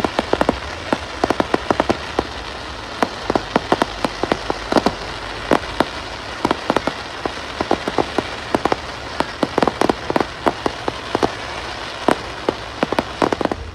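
Crackling fireworks: a dense hiss full of sharp pops and crackles, many each second, sounding like heavy rain. It cuts off suddenly near the end.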